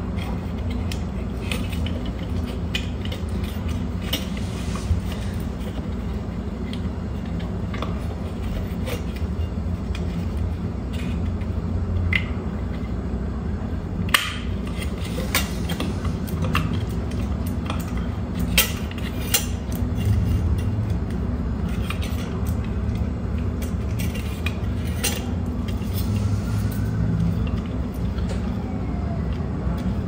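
Scattered clicks and knocks from handling a fan's small plastic rotary speed-control box and turning its knob while it is being rewired, over a steady low hum.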